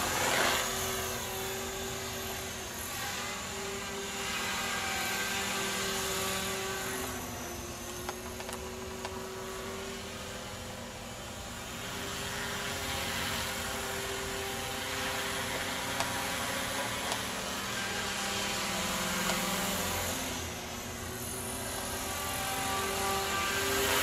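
Thunder Tiger Mini Titan electric RC helicopter in flight overhead: a steady whine of motor and rotor blades. It grows louder and softer as the helicopter moves nearer and farther away.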